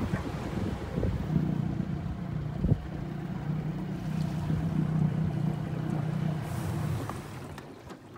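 25 hp Johnson outboard motor running at low speed with a steady hum, fading away near the end.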